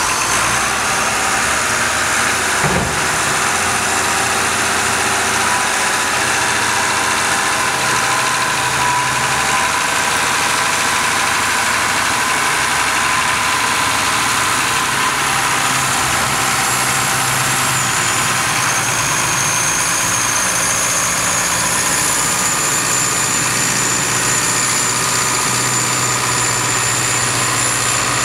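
Tractor diesel engines running steadily under load while hauling a loaded silage trailer, with a single knock about three seconds in.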